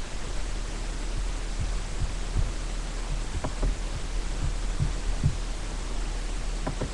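Steady hiss and low hum from a webcam microphone, with irregular soft low thumps and a few faint clicks from a person moving close by.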